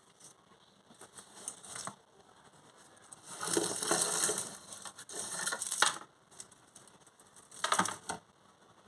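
Packaging being handled and crinkled in three bursts of crackling, the longest and loudest in the middle, as a blind bag is opened.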